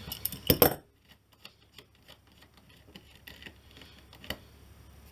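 Sharp metallic clinks of an adjustable wrench on a circuit board's metal standoff and being moved off it, loudest in the first second. Then faint small ticks as the standoff is turned by hand, with one sharper click about four seconds in.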